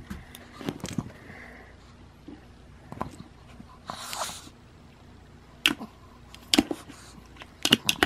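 A plastic bug-catcher container and magnifying glass being handled: scattered light clicks and taps of plastic on plastic, with a short hiss about four seconds in.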